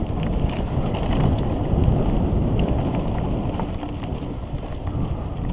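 Mountain bike descending a dirt trail at speed: wind buffeting the microphone and tyres rolling over dirt in a steady low rumble, with small rattles and knocks from the bike over bumps.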